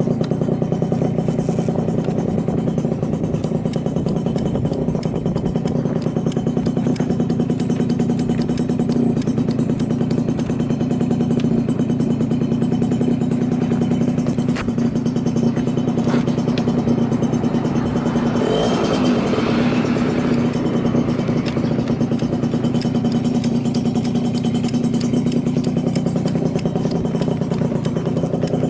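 Yamaha Champ RS 50cc two-stroke scooter engine, fitted with a long expansion-chamber exhaust, idling steadily at an even pitch, running with no abnormal noise.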